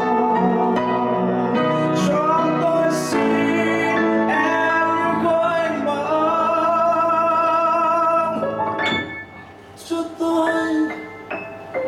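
A male voice sings a slow ballad in long held notes with vibrato, over piano accompaniment. About nine seconds in the voice stops and the piano goes on more softly alone.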